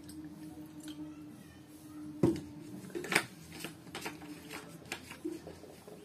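Fingers working biryani rice against a plate: soft squishing and scattered clicks, the two loudest about two and three seconds in, over a steady low hum.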